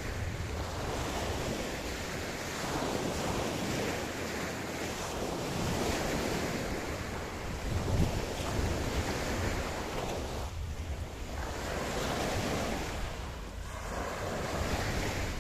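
Ocean surf breaking and washing on a beach, a continuous noisy wash that swells and eases every few seconds, with a low rumble and some wind noise on the microphone.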